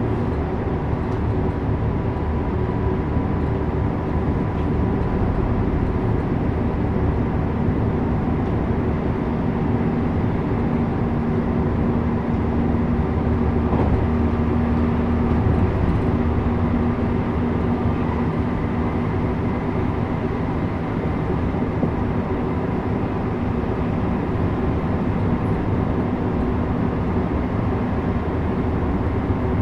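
Interior running noise of a JR West 321 series electric train travelling between stations: a steady rumble of wheels on rail with a faint, even hum.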